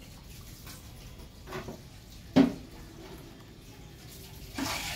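Faint steady background noise broken by short, sudden sounds: a small one a little past a second in, a sharp loud one about halfway through, and another starting near the end.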